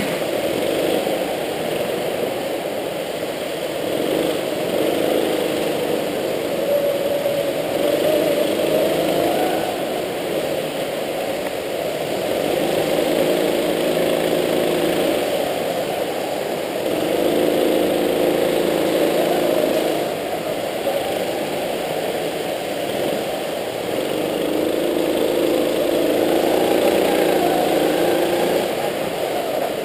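Go-kart engine heard from onboard, revving up in pitch and dropping back four or five times as the kart accelerates along the straights and lifts for the corners.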